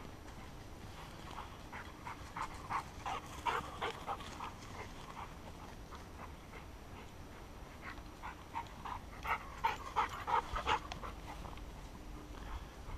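Labrador retriever panting fast and hard while hunting, in two spells of quick breaths, the first about two seconds in and the second about eight seconds in.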